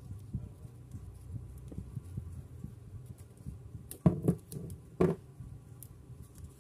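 Scissors cutting through folded origami paper with quiet handling and snipping, then two sharp knocks about a second apart as the scissors are put down on a plastic-covered table.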